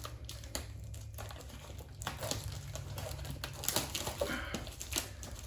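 Crinkling and rustling of packaging being handled as a trading-card booster box is opened, with scattered light clicks and taps, busier from about two seconds in.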